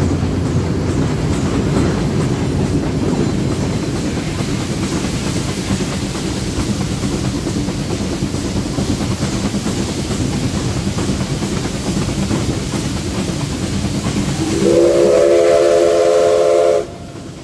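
1947 Baldwin 2-8-2 Mikado steam locomotive and train running with a steady rumble and wheel clatter. About fifteen seconds in, the locomotive's steam whistle gives one loud blast of about two seconds, several tones at once, ending abruptly.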